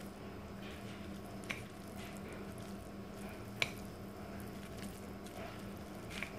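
Wooden chopsticks tossing and stirring sauce-coated noodles in a bowl: soft wet squishing, with two sharp clicks about a second and a half and three and a half seconds in.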